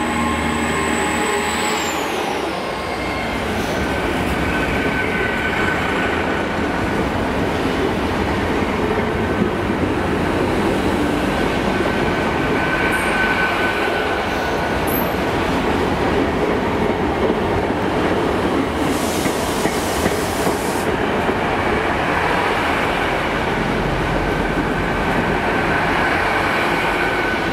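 Great Western Railway Hitachi Intercity Express Train running past along the platform: a steady rumble of wheels on rail with clickety-clack over the joints. Faint high tones come and go.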